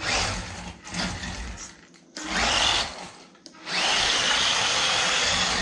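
DEERC 9300 1:18 RC truck's small electric motor and gears whirring in throttle bursts: four bursts, the last and longest starting a little before four seconds in.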